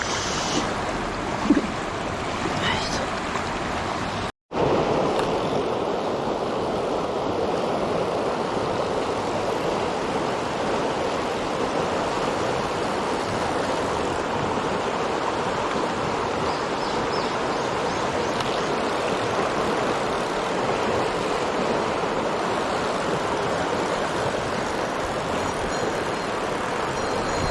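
A mountain stream rushing steadily. The sound cuts out for an instant about four seconds in, then carries on slightly louder.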